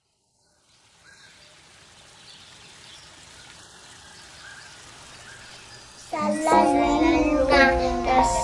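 Faint steady hiss, then about six seconds in the music of a children's song starts suddenly and loudly.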